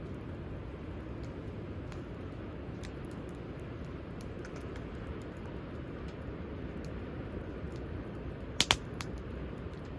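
Wood campfire crackling with scattered faint ticks over a steady low rumble, then two sharp, loud pops close together near the end.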